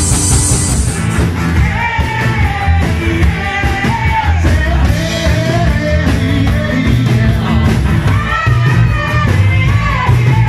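Rock band playing with drums, bass and guitars, and a singer coming in about a second and a half in.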